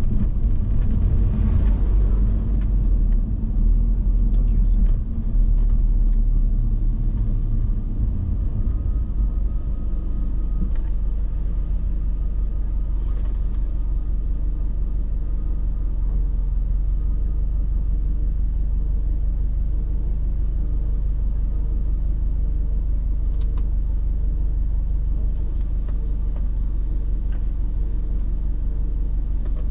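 Subaru Impreza WRX STI's turbocharged flat-four engine and road noise while driving, a heavy low rumble. It is louder and more uneven for the first eight seconds or so, then settles to a steady cruise.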